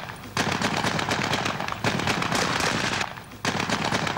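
SA80 assault rifles firing rapidly, a dense string of shots from more than one gun. The firing breaks briefly just after the start and again about three seconds in.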